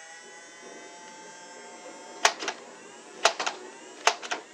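Nerf Elite Stryfe's battery-powered flywheel motors whining steadily while held spun up, with three sharp shots about a second apart as darts are fired, each followed by a couple of quieter clicks.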